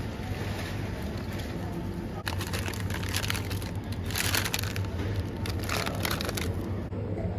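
Crinkling of a plastic-wrapped net bag of lemons as it is handled and dropped into a plastic shopping basket, in several bursts, loudest about four seconds in, over a steady low hum.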